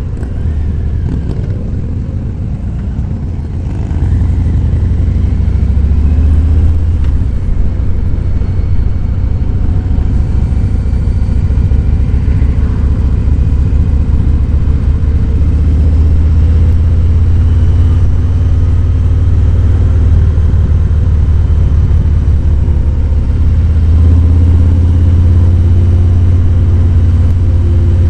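Harley-Davidson Fat Boy 107's Milwaukee-Eight V-twin running while the bike is ridden, a deep, steady rumble that gets louder about four seconds in.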